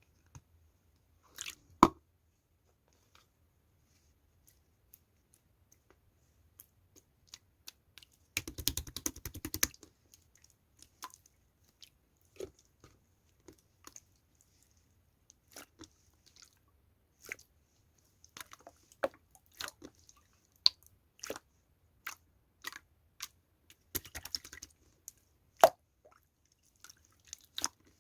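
Barley tea being made and served: scattered sharp clicks and clinks of handling, with a brief dense rattling burst about eight seconds in and another cluster near the end.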